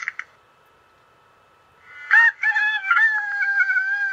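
A rooster crowing: one long, broken, held call starting about two seconds in, after a short sharp sound right at the start.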